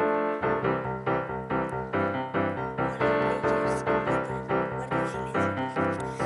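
Piano music: a held chord, then struck notes over a bass line at a steady pace of about two a second.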